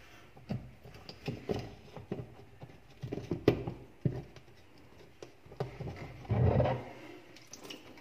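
Plastic pulsator of a Sharp top-loading washing machine being worked loose and pulled off its spindle: irregular knocks and clicks of plastic on plastic, with a longer, louder scrape about six seconds in as it comes free.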